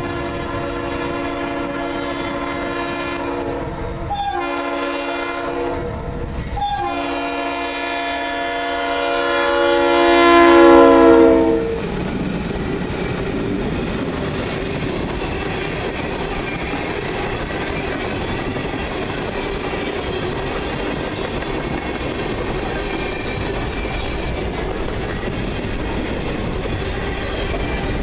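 A Nathan RS3L five-chime air horn on a GE Dash 8-40CW locomotive sounds three blasts, the last one long, growing loudest and dropping slightly in pitch as the locomotive passes about eleven seconds in. Then a string of tank cars rolls by with a steady rumble and clickety-clack of wheels over the rail joints.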